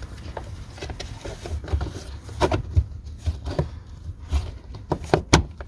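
Clicks and knocks of parts being handled and fitted back into place during reassembly, with a few sharp knocks near the end.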